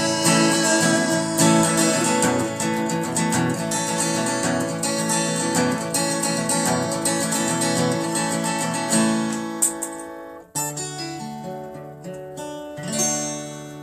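Solo acoustic guitar strumming the instrumental ending of a song. The strumming thins out about ten seconds in, breaks off briefly, and gives way to a few held chords, with a final chord ringing near the end.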